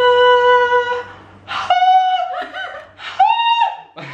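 A man singing three long held notes in a mock operatic voice, each one higher than the last and all of them high-pitched.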